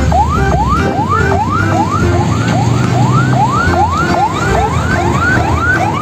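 Electronic siren sound: a quick rising whoop repeated about two and a half times a second, with no pause between whoops.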